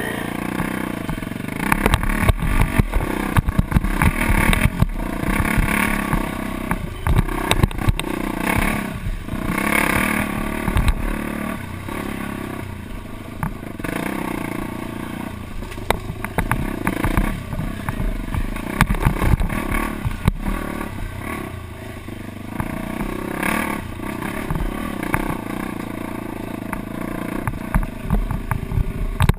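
Off-road dirt bike engine, heard from a helmet-mounted camera, revving up and falling back over and over as it rides a bumpy dirt trail, with many sharp knocks and clatter from the rough ground and wind rumble on the microphone.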